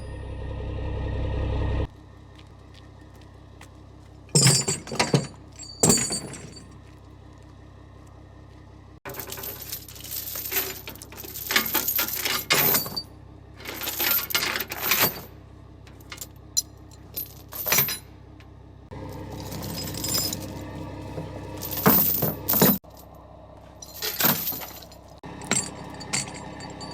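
Sharp metal clanks and jingling rattles in several clusters, like heavy metal parts or chain striking metal, over a steady low diesel engine idle. The background hum changes abruptly several times.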